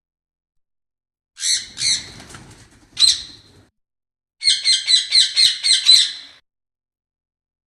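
Pet parrot squawking: two harsh calls about a second and a half in, another near three seconds, then a quick run of about eight squawks.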